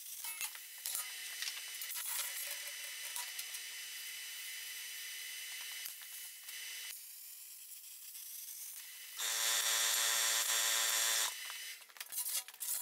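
Handheld plasma cutter's arc hissing steadily as the torch is run fast at full power through aluminium tread plate, with a few thin steady whines over the hiss and some small clicks; the hiss stops after about seven seconds. About nine seconds in, a louder buzzing hiss runs for about two seconds, followed by a few small knocks.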